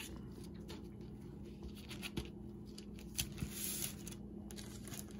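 Faint rustling and crinkling of parchment paper as hands press and tuck the ends of a rolled stromboli dough, with a few soft taps about two and three seconds in, over a faint steady hum.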